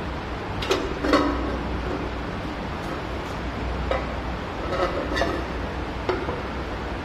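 Scattered light clicks and knocks of a plastic cover and ring being handled and pushed up around the mounting tube of a ceiling-mounted surgical light, about six in all, over a steady low hum and hiss.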